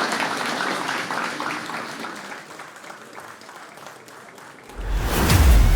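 Audience applauding the announced winner, the clapping fading away over about four seconds. Near the end a deep, rumbling whoosh of an edited transition cuts in suddenly.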